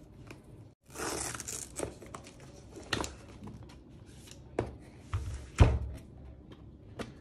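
Handling noise of an airsoft rifle being lifted out of its fitted box tray by gloved hands: a rustling, scraping burst about a second in, then scattered clicks and knocks, with a low thump, the loudest sound, a little past halfway.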